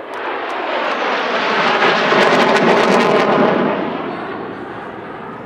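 F-16 fighter jet flying past: the engine noise swells to a peak about two to three seconds in, crackling at its loudest, then fades away.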